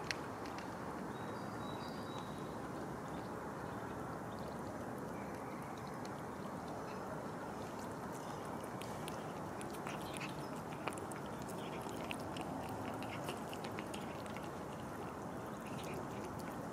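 Cats crunching dry kibble from a plastic tub: many small crisp crunches, coming thicker in the second half, over steady background noise.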